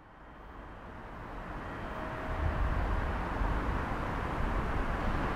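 Steady low rumble and hiss of outdoor background noise, fading in over the first two and a half seconds and then holding level.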